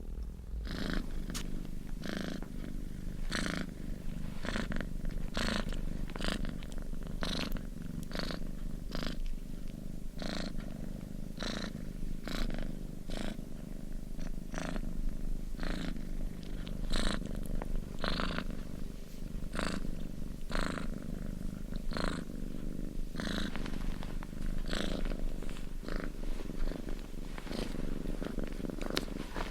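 Domestic cat purring: a steady low rumble that swells with each breath in and out, roughly once a second.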